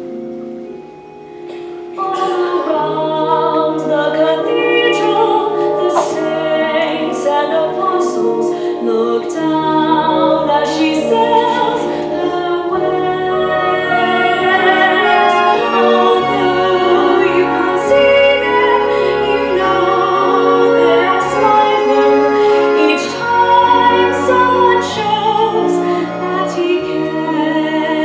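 Live musical-theatre song: a pit orchestra accompanies a woman singing a slow ballad over long held bass notes. The singing and fuller accompaniment come in about two seconds in, after a softer opening.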